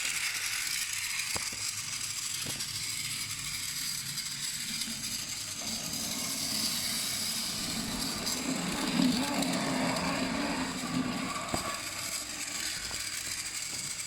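Battery-powered toy train running along plastic track, its small motor giving a steady whir with the wheels rattling and clicking over the track joints.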